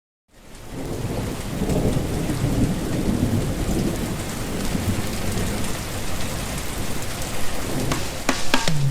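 Steady rain with low rolling thunder, fading in quickly at the start, with a few sharp knocks near the end.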